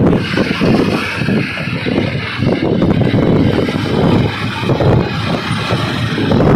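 Travel noise from a moving vehicle, with wind rumbling and buffeting on the microphone in irregular gusts.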